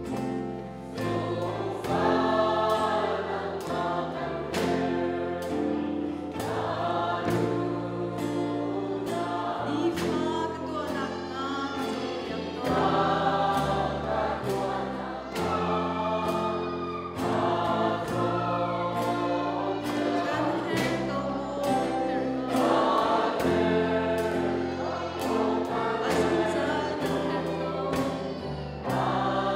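A congregation singing a worship song together over a live band, with a drum kit keeping a steady beat and an electric guitar. The singing comes in long held phrases of a few seconds each.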